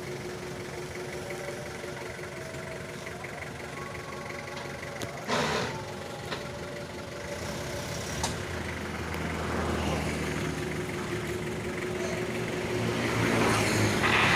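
Speedboat's outboard motor running steadily on the water, its drone growing louder in the second half and loudest near the end, with a brief rush of noise about five seconds in.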